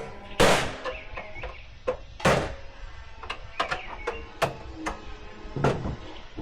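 Sharp metallic knocks and lighter taps as concentric knockout rings are punched out of a sheet-metal electrical enclosure, with three loud ringing strikes among the smaller taps. Faint background music underneath.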